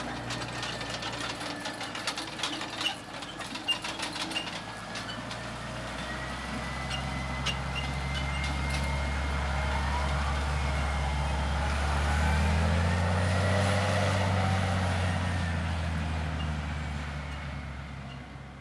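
Case CVX 195 tractor's engine running as it pulls a Krone Comprima CV 150 XC round baler past, growing louder to a peak about two thirds of the way through and then fading as it moves away. A run of sharp knocks comes a few seconds in, and a thin high whine runs along under the engine.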